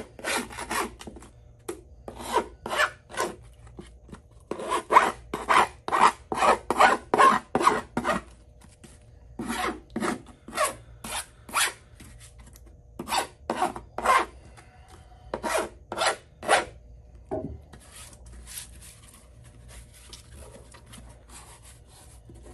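Metal hand file rasping back and forth along the bare honeycomb-core edge of a pickleball paddle, about three strokes a second in runs, roughening the edge so glue will stick to it. The filing stops about seventeen seconds in, leaving only faint handling noise.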